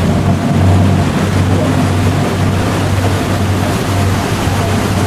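Motorboat engine droning steadily while water rushes and splashes in the boat's churning wake.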